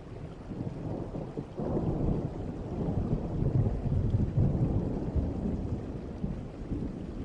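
Thunder rumbling low over steady rain: it swells about a second and a half in, rolls on loudest for a few seconds, then eases off.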